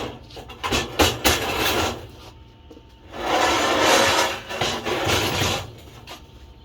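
Metalwork in a workshop: a few sharp metal knocks and clanks, then about three seconds of rough, steady scraping of metal.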